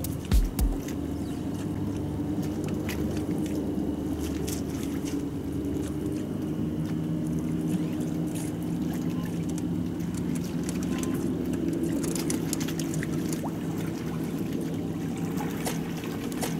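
Steady low engine hum, like a motorboat running out on the lake, with light water sounds at the shoreline and faint small ticks.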